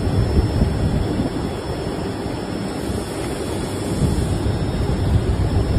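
Steady low rumbling noise, strongest in the bass, with no distinct knocks or tones.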